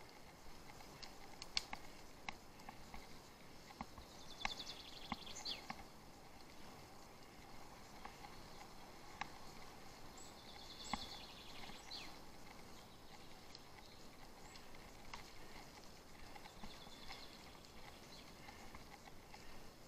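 Faint irregular clicks and knocks from a bicycle riding over a rough off-road trail, with a songbird singing a fast high trill that ends in a falling flourish, three times.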